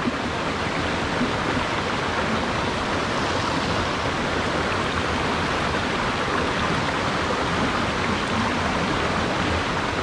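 Steady rushing of a mountain stream running over boulders and small cascades.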